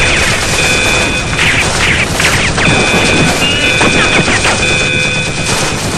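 Battle sound effect: dense gunfire and explosions, with a high, steady alarm tone sounding over them that drops out for about a second near the two-second mark.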